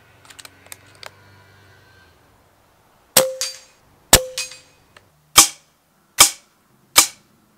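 Shots from an FX T12 .22 pre-charged pneumatic air rifle: a string of sharp cracks from about three seconds in, roughly one a second. The first two each have a second crack close behind and a short metallic ring. A few faint clicks come in the first second.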